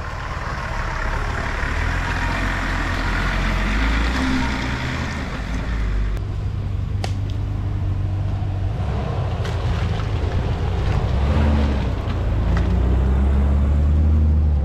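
Nissan Patrol 4x4 engines running as the vehicles drive a muddy off-road track, the engine note rising and falling with the throttle. A few sharp clicks come about seven seconds in.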